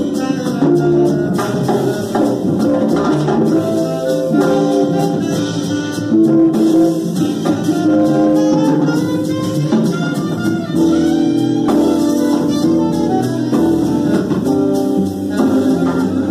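Small jazz band playing live: alto saxophone carrying a melodic line over walking upright bass and drum kit with cymbals.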